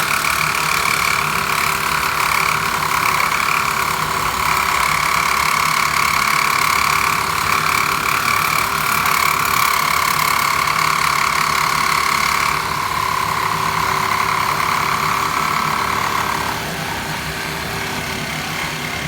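Hilti bladed power cutter running at speed through a cut, a steady high motor whine. The pitch steps down slightly about two-thirds of the way through, and the whine dies away near the end.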